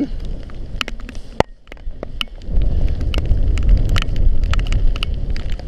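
Gusty wind buffeting the GoPro's microphone, a low rumble that comes up strongly about halfway through, with scattered light clicks: the wind picking up ahead of a hurricane.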